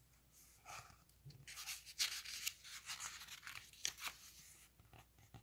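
A picture book's paper page being turned by hand: soft rustling and sliding of paper, with a few sharper crinkles about two and four seconds in.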